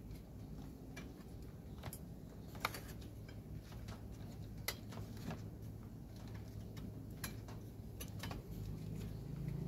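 Small, irregular plastic clicks and taps from the parts of a Panasonic induction-heating rice cooker as they are handled and pressed into place by hand in its opened housing.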